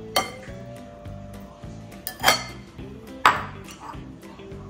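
Kitchen scissors snipping through cooked rice noodles in a ceramic bowl, the blades clinking sharply against the bowl about three times, over background music.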